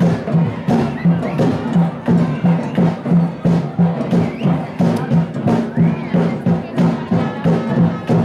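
Upbeat music with a steady drum beat, a little over two beats a second, and sharp percussion hits.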